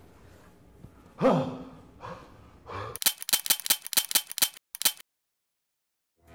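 A man's sharp gasp about a second in, with a couple of fainter breaths after it, then a rapid run of sharp clicks, about six a second, for nearly two seconds: a typing sound effect as title lettering appears. Then silence.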